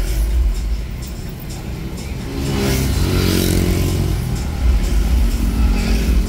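Steady low rumble of a car idling in stopped traffic. Near the middle, a motor vehicle passes close by, its engine note swelling and then fading. Music plays in the background.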